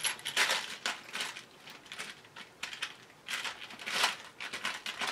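Small hard craft pieces clicking and clattering as someone rummages through supplies in search of an embellishment jewel: irregular clicks, thickest in a cluster a little past the middle.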